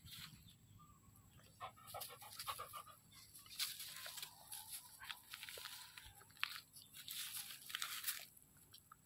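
A dog licking and nibbling at its own fur and belly: a quick run of short smacking sounds about two seconds in, then longer rustling, scuffling bursts as it shifts on dry straw.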